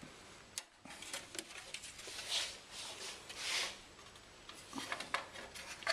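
Handling noise from reassembling a DVD recorder's casing: scattered small clicks and taps, with two short scraping sounds about two and a half and three and a half seconds in.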